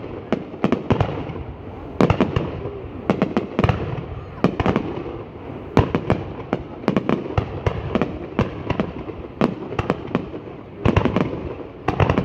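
Fireworks going off: a long run of sharp bangs at irregular intervals, often several in quick succession, over a continuous background noise.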